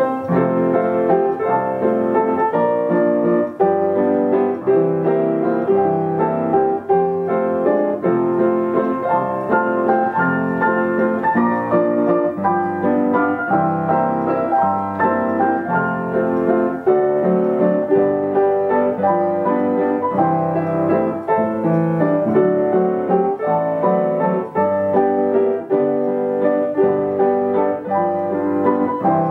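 Yamaha upright piano playing an old popular tune in full chords with a steady, bouncy beat.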